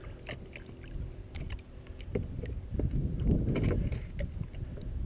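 Water sloshing and lapping around a landing net beside a boat, with light scattered clicks of pliers and lure hooks as a muskie is being unhooked. The sloshing swells for a moment in the middle.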